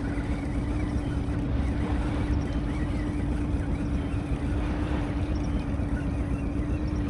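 A steady motor hum holding one even pitch throughout, over a low rumbling noise.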